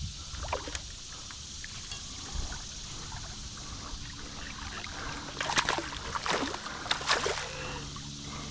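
Creek water running steadily, with a run of three splashes in the water from about five and a half seconds in.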